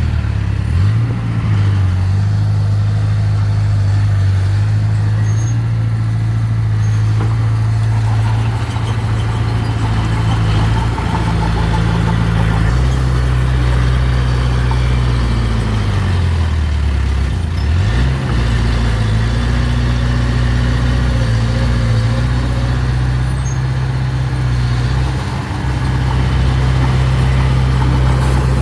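Diesel engine of heavy earthmoving machinery running steadily under load, its pitch sagging and then climbing back up a little past the middle.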